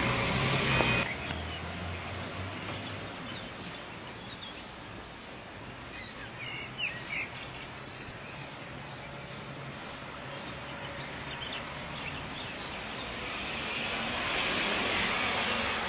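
Steady outdoor background noise from the camera's own microphone, with a low hum that drops away about a second in and swells again near the end. A few short, high chirps come about six to seven seconds in.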